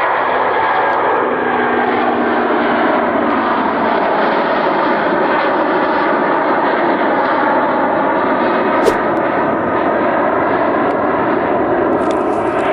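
Airbus Beluga XL's twin Rolls-Royce Trent 700 turbofans at takeoff power: a loud, steady jet roar with faint tones inside it that slowly drop in pitch.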